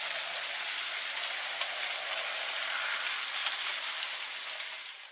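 Heavy rain falling steadily, a dense hiss with scattered ticks of single drops, fading out near the end.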